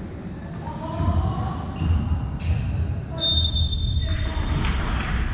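Basketball game play in a large hall: a ball bouncing on the court with repeated thuds and players' movement, and a short, steady high-pitched squeal about three seconds in.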